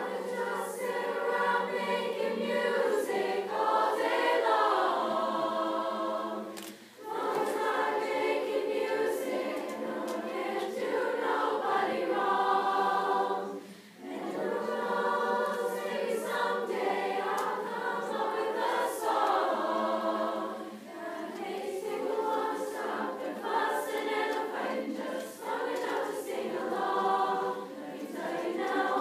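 A chorus singing, in phrases that break off briefly about seven and fourteen seconds in.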